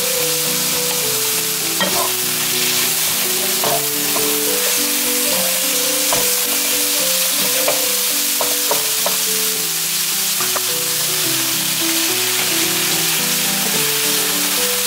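Eggplant strips sizzling in a nonstick frying pan with soy sauce, stirred with wooden spatulas that tap and scrape the pan several times between about two and ten seconds in. Background music with held notes plays underneath.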